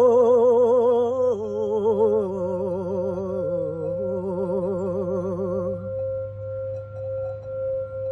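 A crystal singing bowl rung by a wand around its rim sounds a steady tone tuned to 528 Hz. Over it a woman sings a long wordless tone with wide vibrato, stepping down in pitch twice. Her voice stops about six seconds in, leaving the bowl ringing on its own.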